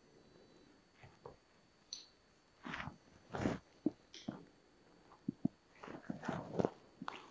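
Steel tools being handled on an injector holding fixture: scattered clinks, knocks and short scrapes as a spanner plate and wrench handle are fitted onto the injector's nozzle nut.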